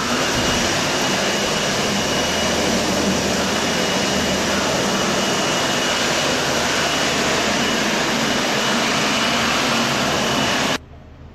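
Armitage Shanks toilet with a wall push-button flush, flushing: a loud, steady rush of water into the bowl with a faint high whine in it, cutting off abruptly near the end.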